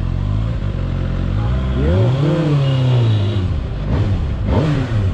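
Kawasaki ZX-6R inline-four engine running low at walking pace. About two seconds in it is revved once, the pitch rising and then falling back. A quick, short throttle blip follows near the end.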